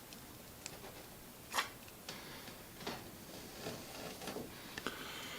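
Quiet handling sounds while flux is dabbed onto a copper battery-cable lug: a few scattered light taps and clicks, with faint scraping, as the nearly empty flux tin and the lug are worked.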